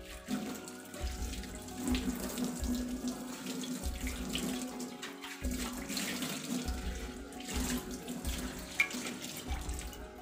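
Tap water running and splashing onto a dosa tawa in a stainless steel sink as the pan is rinsed of soap suds by hand.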